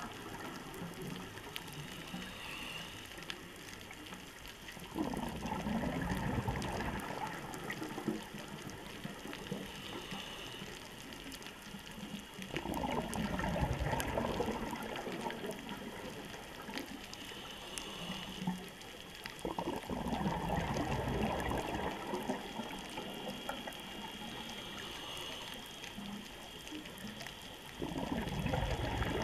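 Underwater bubble rush from a scuba diver's regulator exhaust as the diver breathes out, four times at roughly seven-second intervals, with a steady underwater hiss between the breaths.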